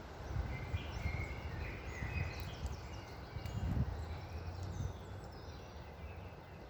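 Several small birds chirping and twittering in short, quick calls, thinning out toward the end, over a steady low wind rumble.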